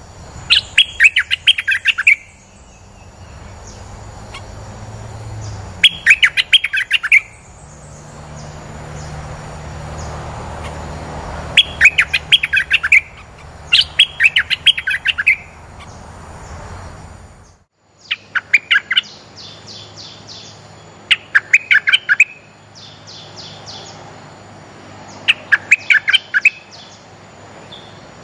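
Bulbul calls used as a decoy to lure others: repeated quick bursts of bright, rapid chirping notes, each burst about a second long, coming every few seconds.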